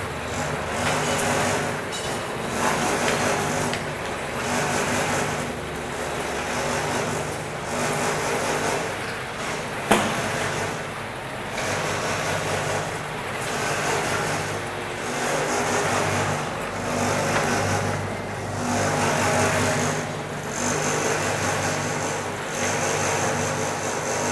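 J H Day ribbon mixer running: its 1½ hp chain-driven electric motor hums steadily while the stainless steel ribbon agitator churns a load of plastic balls in the stainless chamber, a rattling clatter that swells and fades about every second and a half as the ribbon turns. One sharp click about ten seconds in.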